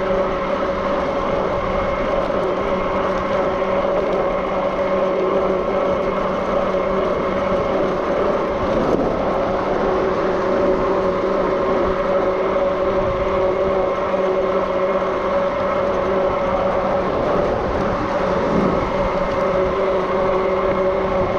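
Zugo e-bike under way: the electric motor gives a steady whine of several held tones over a low rumble of wind and tyres.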